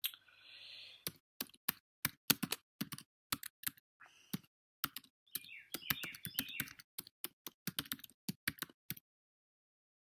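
Typing on a computer keyboard: an irregular run of key clicks as a web address is typed in.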